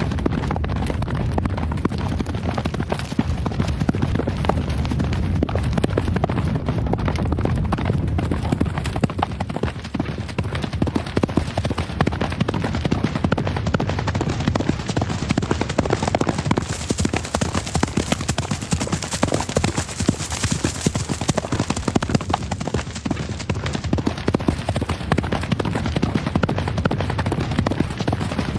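Horse hooves galloping, a dense, continuous drumming of hoofbeats on ground.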